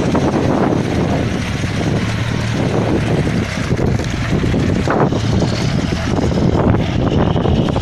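Nissan Terrano I 4x4 on 40-inch mud tyres, its engine running under load as it drives through deep mud, with the tyres churning the mud.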